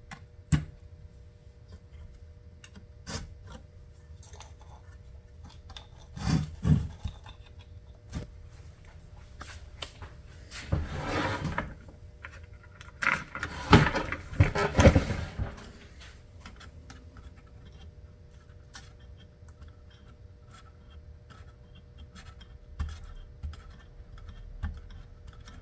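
Hand-handling noise on an electronics circuit board: rubbing and scraping over a chip, with scattered small clicks and knocks. The louder scrubbing comes in two stretches, about ten to twelve seconds in and again about thirteen to fifteen seconds in.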